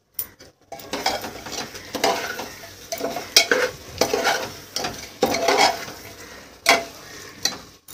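Metal spoon stirring and scraping goat meat and masala against the sides of an aluminium pressure cooker, in irregular strokes, over a sizzle of the meat frying on a high flame.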